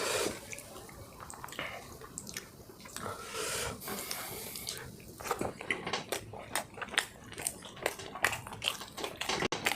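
A person chewing tender malai chicken with the mouth close to the microphone. Soft, uneven chewing at first, then from about halfway a dense run of quick, wet smacking clicks.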